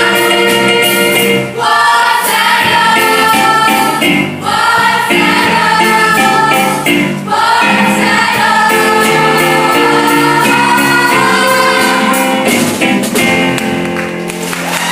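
Group of voices singing a musical-theatre number in chorus with instrumental accompaniment, in phrases of long held notes.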